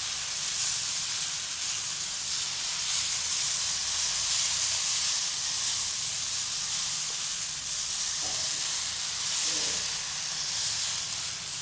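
Rice-flour and egg batter sizzling steadily as it is piped from a squeeze bottle onto a hot flat griddle, a continuous even hiss.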